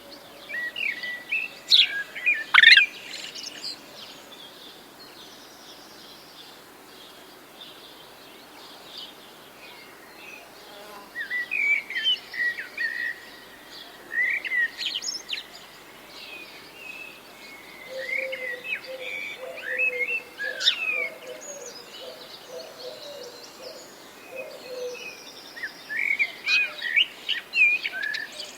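Wild songbirds chirping and singing in short clusters, with quieter gaps between them, over a faint outdoor hiss. A lower wavering call runs beneath them for several seconds past the middle.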